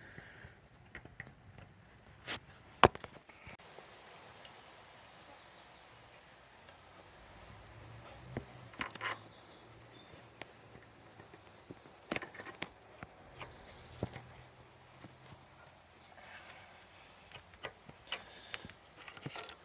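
Scattered sharp clicks and taps of pliers and a metal pin as the pin is worked through the steering cable's end on a brake lever, over a faint steady background.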